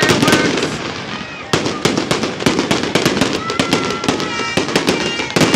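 Fireworks display: aerial shells bursting overhead in quick, irregular succession, a dense run of bangs and crackling.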